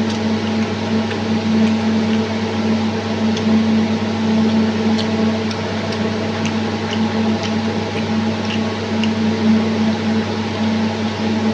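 Steady mechanical hum of a motor, even throughout, with faint scattered small clicks of eating over it.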